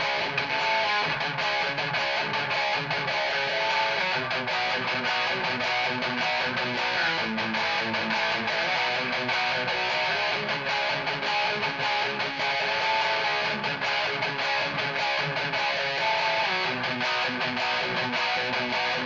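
Electric guitar with active pickups played through a Peavey 6505 Piranha amp and 1x8 cabinet, high-gain metal riffing without pause.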